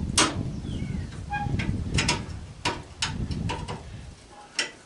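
Hand tools working at rusted screws on an AC condenser's sheet-metal cabinet: a series of sharp metallic clicks and knocks, some with a brief ring, over a low rumble that fades out near the end.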